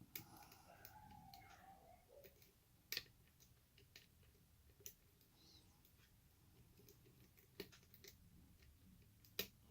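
Sharp, separate metallic clicks, about five, from a pick working the pins of a Yale pin-tumbler lock under light tension: the clicks of pins setting at the shear line.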